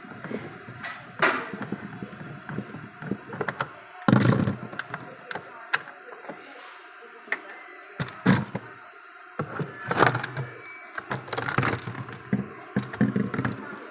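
Irregular clicks, knocks and scrapes of a refrigerator freezer's plastic evaporator cover and its fasteners being worked loose and handled, with a few louder thumps about four, eight and ten seconds in.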